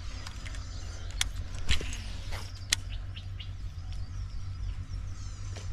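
Outdoor ambience: a steady low rumble, with a few sharp clicks in the first three seconds and faint high chirps.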